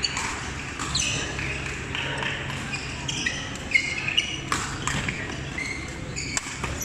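Badminton rally: several sharp racket strikes on the shuttlecock, the loudest a little under four seconds in, with short sneaker squeaks on the court floor between them and voices chattering in the hall behind.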